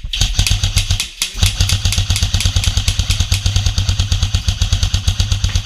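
Airsoft electric gun firing on full auto: a rapid, even stream of shots over the hum of the gearbox motor, in two bursts with a short break about a second in.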